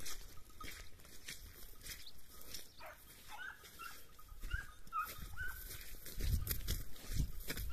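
Hunting hounds giving tongue as they run a flushed hare: a string of short yelps, one after another, starting about three seconds in. Low rumbles near the end.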